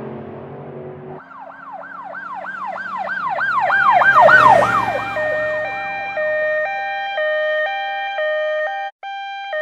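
An engine sound cuts off about a second in, and a fire-engine siren sound effect takes over. First comes a fast yelping wail, several sweeps a second, that swells to its loudest around four seconds in and drops in pitch as it passes. Then it settles into a two-tone hi-lo siren alternating steadily between two notes.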